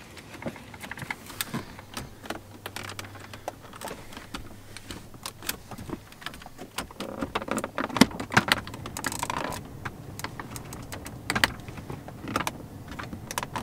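2015 Chevy Silverado's plastic dash trim being fitted back into place around the new head unit: scattered clicks, taps and rustles of panels and wiring being handled, with the sharpest click about eight seconds in.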